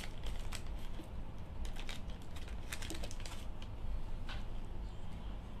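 Handling noise: irregular clusters of light clicks and taps as small objects are handled by hand, densest in the middle, over a steady low hum.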